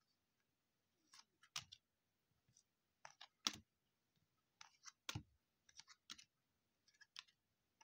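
Faint, irregular clicks and snaps of 2020 Topps Series 2 baseball cards being handled and flipped through one at a time, about a dozen in all.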